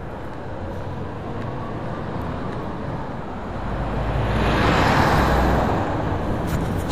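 Street traffic picked up by an action camera's built-in microphone clipped to a walker's jacket. A vehicle passes close by, swelling to its loudest about five seconds in and then fading, with a few sharp clicks near the end.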